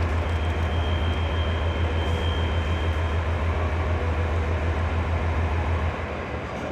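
HB-E300 diesel-hybrid railcar standing at the platform with its engine running: a steady low hum that drops in level about six seconds in. A thin, steady high tone sounds for about three seconds near the start.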